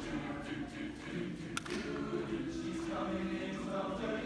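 A chamber choir singing in held, layered chords, with one sharp click about a second and a half in.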